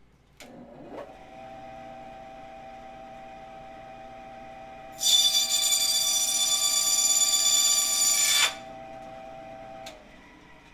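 Bandsaw switched on and running with a steady hum. About five seconds in, its blade cuts through a strip of perforated-metal 'dragon skin' drywall rasp with a loud, high-pitched screech for about three and a half seconds. The saw then runs on and is switched off near the end.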